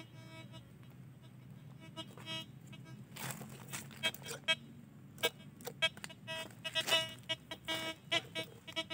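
Metal detector giving short, faint beeps at one steady pitch every second or so as its search coil is swept over the ground, with scattered clicks and rustles of feet and dry leaves.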